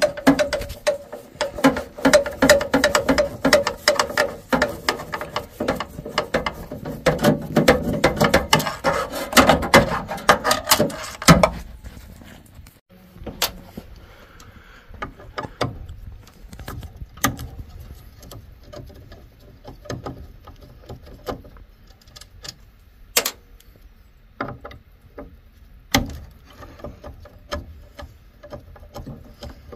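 Hand tools working on the metal parts of a tankless water heater: ratchet-like clicking with scattered sharp clicks, clinks and knocks. For about the first eleven seconds the clicking is dense and louder over a steady hum, then it thins to separate clicks and knocks.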